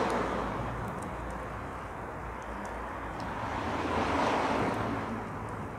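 Passing road traffic: the rush of one vehicle fading at the start and another swelling and passing about four seconds in.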